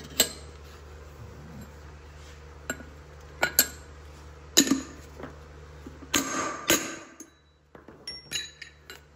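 A string of sharp metallic clinks and taps, the loudest about the moment a liquid-nitrogen-chilled wheel bearing race drops into a bus wheel hub. A steady low hum underneath stops about seven seconds in.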